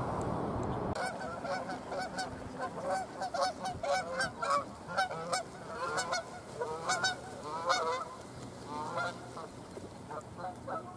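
A steady noise stops about a second in. Then Canada geese honk over and over in quick runs of calls, thinning out near the end.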